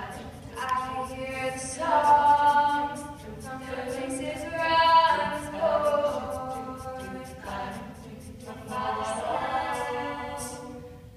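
A mixed a cappella choir singing through handheld microphones, held chords in phrases that swell and fade. A quick, steady ticking beat runs above the voices.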